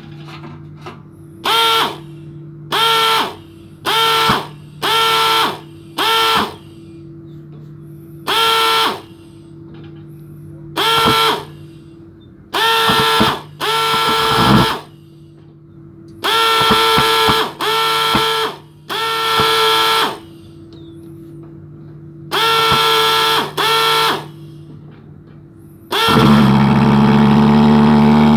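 Pulse-jet engine of a thermal fogging machine being started: a series of short irregular bursts of sound, then about 26 seconds in it catches and runs on continuously and loudly.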